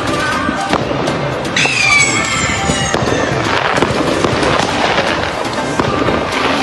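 Fireworks crackling and popping in quick, dense succession, with a whistling firework that slides down in pitch over about a second, starting about a second and a half in.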